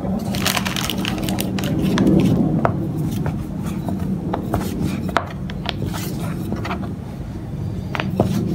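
Wooden rolling pin rolling out momo dough wrappers on a plastic cutting board, with scattered clicks and knocks as the pin and hands bump the board, over a steady low hum.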